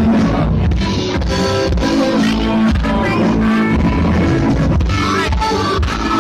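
Live rock band playing loudly, with guitars over bass and a drum kit.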